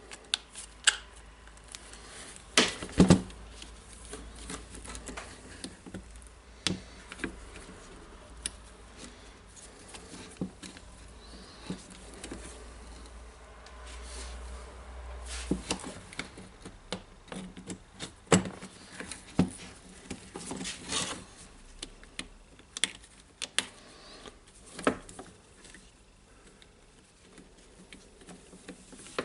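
Irregular clicks, taps and knocks of small drill parts and wires being handled and fitted as a cordless drill is put back together, with the loudest knocks about three seconds in. A faint low hum stops about halfway through.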